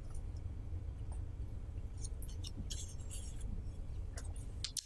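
Faint rustling and scratching of a paper sheet being handled, a few short strokes over a low steady room hum.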